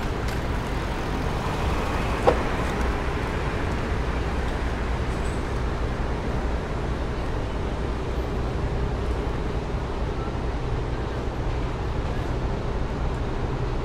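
City street traffic: a steady rumble of passing vehicles. A single sharp knock comes about two seconds in.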